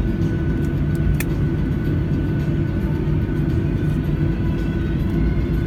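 Boeing 737 cabin noise during landing: a steady, loud rumble of jet engines and airflow heard from a window seat over the wing, with a steady engine whine on top. A brief click about a second in.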